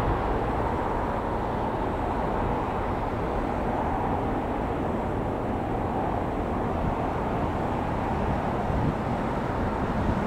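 Airbus A350-1000's Rolls-Royce Trent XWB-97 turbofans on final approach, heard as a steady, distant rushing rumble.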